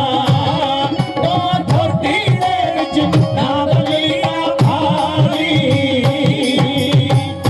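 Live Punjabi folk singing: a male voice sings a wavering melody through a PA system over steady dhol drum beats and instrumental accompaniment.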